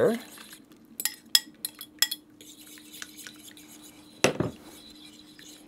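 A metal spoon clinking against a glass bowl and an enamelled cast-iron pan as an egg-and-cream mixture is poured into a sauce and stirred in: several light clinks in the first couple of seconds, then one sharper knock about four seconds in. A faint steady hum sits underneath.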